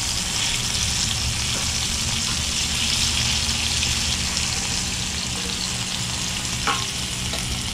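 Mangrove snapper fillets sizzling steadily as they fry in hot oil in a pan. A short tap sounds near the end.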